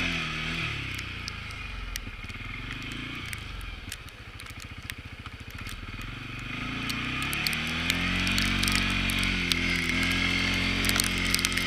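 CFMoto CForce ATV engine: its revs fall to a low, pulsing idle, then rise about seven seconds in and hold at a steadier, louder speed, with scattered light clicks over it.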